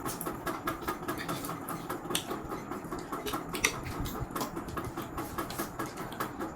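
Close-up eating of spicy instant noodles: chewing with many rapid, irregular wet mouth clicks and smacks.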